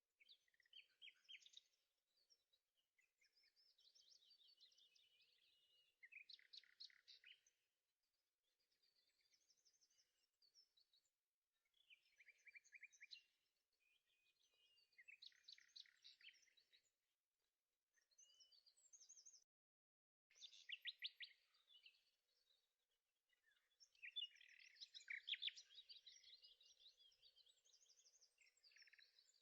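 Faint songbird song: phrase after phrase of rapid chirps and trills, each a second or two long, with short pauses between.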